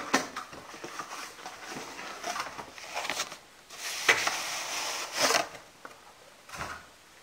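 Cardboard graphics-card box being opened by hand: cardboard rubbing and scraping with a few sharp taps, and a longer sliding rub about four seconds in as the outer packaging comes off.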